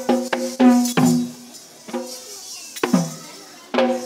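Dance drum beaten in an uneven rhythm: a quick run of strokes in the first second, then single strokes about a second apart. Each stroke rings with a low pitch that sinks as it dies away.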